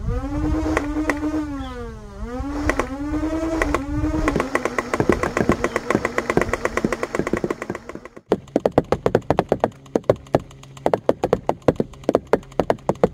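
Nerf Rival Prometheus blaster's flywheel motors revving up with a whine that dips and rises again, then about four seconds in it starts firing foam rounds in a rapid clatter over the whine. After about eight seconds the sound cuts to a fast, uneven run of sharp smacks as rounds hit a cardboard box target.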